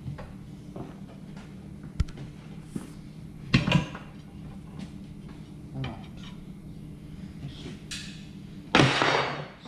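A hand tire-changing tool clanking and knocking against a wheel rim as a tire is worked onto it: a sharp knock about two seconds in, a few clanks near four seconds, and a louder scraping rasp near the end.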